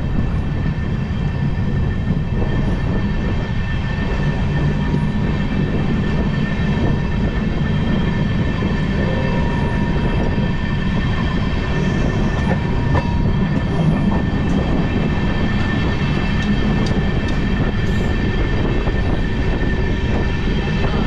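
Shaheed Express passenger train running after pulling out of a station, a steady rumble of wheels on the rails with a faint steady whine above it.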